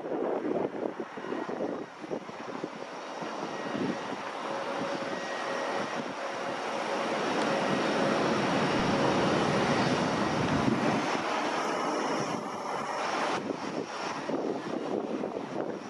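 Etihad Boeing 777-300ER's GE90 jet engines during landing, the noise building and holding at its loudest as the airliner rolls out on the runway. About 13 seconds in it changes abruptly to the quieter engine noise of an Airbus A321 on final approach.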